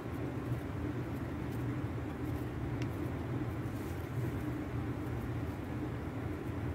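Steady low rumbling background noise, with a few faint crinkles of paper banknotes being handled and laid in place.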